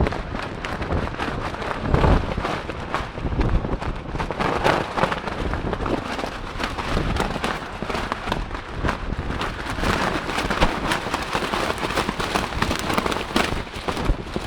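Squally wind buffeting the microphone, with a dense irregular crackle and rattle throughout and stronger gusts about two seconds in and again past ten seconds.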